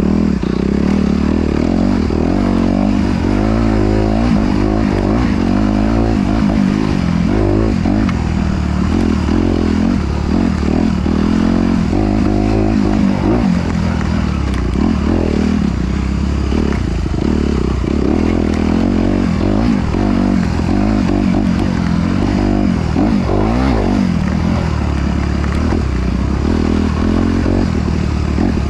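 Motorcycle engine running continuously, its revs rising and falling.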